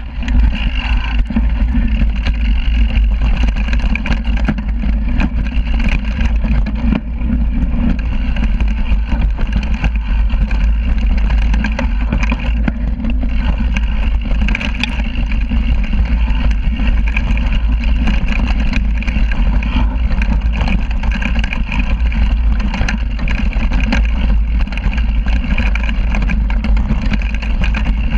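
Mountain bike descending a rocky dirt trail at speed, heard from a camera mounted by the rear wheel: steady wind rumble on the microphone over the knobby tyre rolling on dirt and stones, with frequent small knocks and rattles from the bike.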